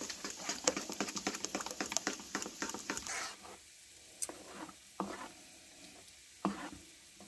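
Steel spoon stirring green chutney into thick whisked yogurt in a plastic bowl: rapid wet clicks and scrapes, thinning out to occasional taps after about three seconds.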